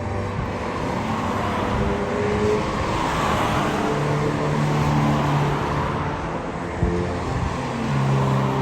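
A car driving by, its engine and tyre noise swelling about three seconds in, with background music playing.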